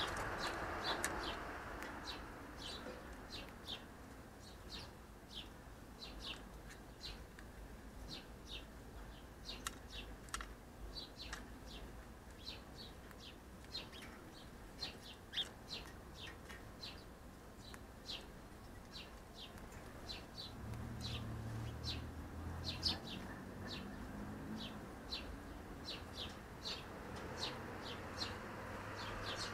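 A bird chirping steadily: short, high, sharp chirps repeated about once or twice a second. A low hum rises underneath about two-thirds of the way through and then fades.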